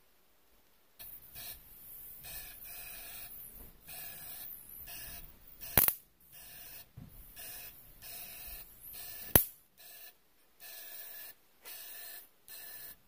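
Eastwood Dual-Voltage powder coating gun's compressed air hissing in short on-and-off spurts as the trigger is worked. Two sharp clicks stand out about six and nine seconds in.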